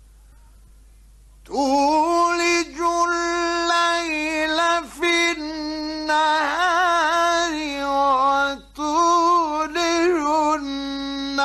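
Male Quran reciter chanting in the melodic mujawwad style. After a second and a half of faint hiss, his voice enters with long held notes, ornamented with wavering turns, in several phrases split by short breaks for breath.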